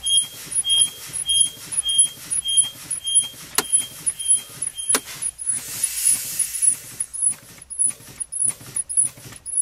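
Truck air brakes being fanned down with the engine off: the brake pedal is pumped about one and a half times a second, each stroke letting out a short puff of air. A high beep repeats between the strokes through the first half, and two sharp clicks are followed by a longer hiss of air around five to six seconds in.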